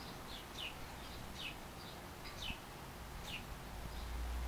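A small bird chirping repeatedly outdoors: short, high, downward-sliding chirps, about two a second, over a faint background hiss. A low rumble comes up near the end.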